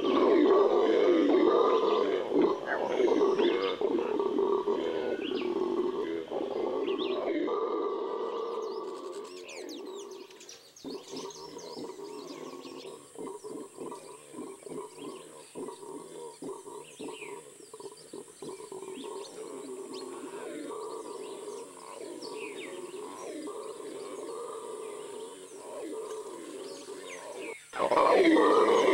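Red howler monkeys (Alouatta seniculus) howling, a continuous roar. It is loud for about the first ten seconds, then quieter and broken into rapid pulses, and swells loud again at the very end.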